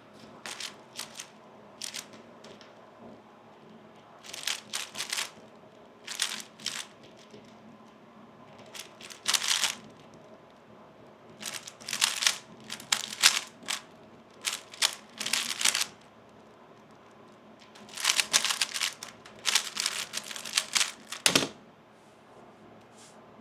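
3x3 speed cube being turned fast during a timed solve: runs of rapid plastic clicking and clacking, each a second or two long, with short pauses between them. A single sharp knock comes near the end.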